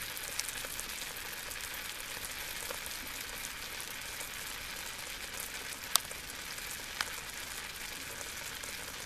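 Beef steak and whole garlic cloves frying in fat in a stainless steel pan: a steady sizzle with fine crackles, and two sharp clicks about six and seven seconds in.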